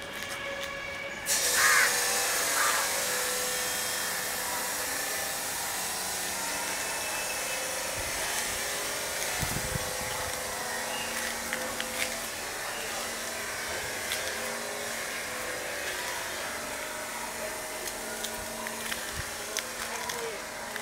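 A power tool starts abruptly about a second in and runs steadily with a high, hissing noise.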